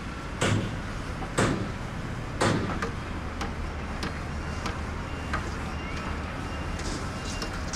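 Shipyard work noise: three loud knocks about a second apart over a steady low machinery hum, then lighter knocks.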